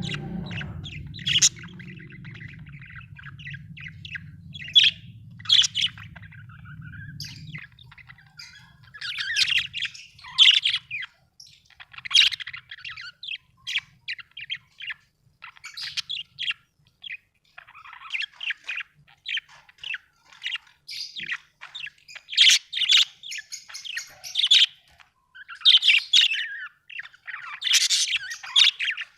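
Budgerigars chirping and chattering in quick, irregular bursts of high chirps and squawks. A low steady hum runs underneath for the first several seconds, stopping about seven seconds in.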